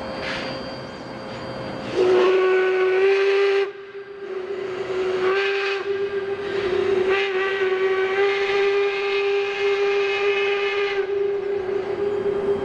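Steam locomotive whistle on Baldwin Locomotive Works #26: one short, loud blast about two seconds in, then a long blast lasting about six seconds that fades away afterwards.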